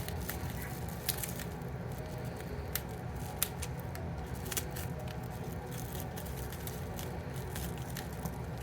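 A small cardboard box being opened by hand: scattered light clicks, snips and crinkles of packaging over a steady low hum.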